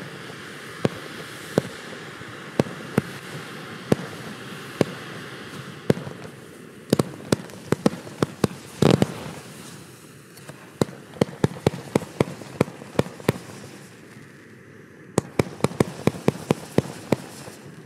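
Small consumer (F2) fireworks going off: a string of sharp cracks and bangs at irregular intervals, bunching into rapid clusters in the middle and near the end, with one longer, louder burst about nine seconds in.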